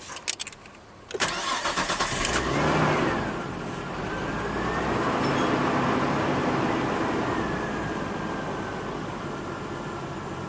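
Car engine cold-started: a few clicks, then the starter cranks for about a second before the engine catches with a brief rev and settles into a steady fast idle, with a faint whine rising and falling. The owner calls it a strange startup, which he puts down to the engine computer being confused after a transmission swap.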